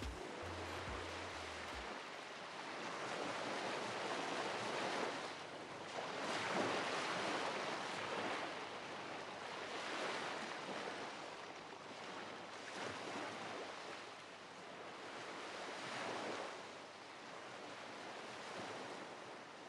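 Ocean surf: waves washing in and out, swelling and falling back every few seconds at a fairly low level. The last low bass notes of the music stop about two seconds in.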